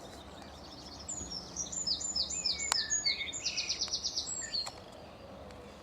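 A songbird singing one phrase of quick, repeated high notes that ends in a fast trill.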